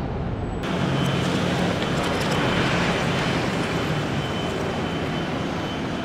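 City street traffic: steady road noise with a low engine hum from motor vehicles, swelling a little between about one and three seconds in.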